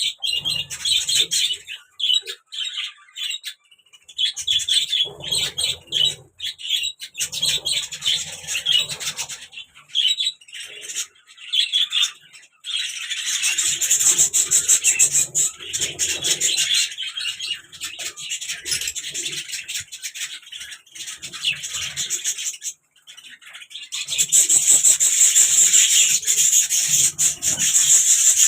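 Small pet birds chirping and chattering rapidly in high-pitched stretches that come and go, pausing briefly a few times.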